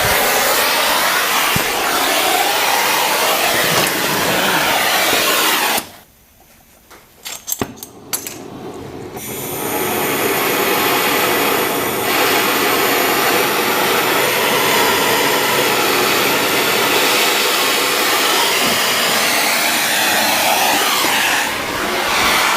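Oxygen-acetylene torch flame hissing steadily as it heats a seized nut. The hiss cuts out suddenly about six seconds in, a few sharp clicks follow, and the steady hiss builds back up about three seconds later.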